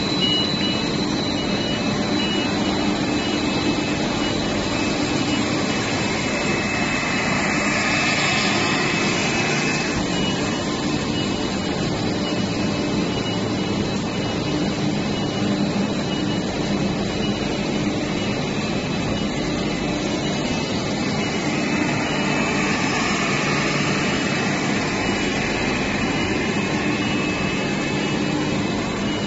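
Cable co-extrusion line running: steady machine hum and whir with faint high whines. A hiss swells about eight seconds in and again near the end.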